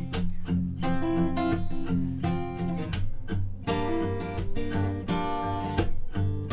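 Acoustic guitar strummed in chords, the instrumental break between sung lines of a live song, with a change of chord a little past halfway.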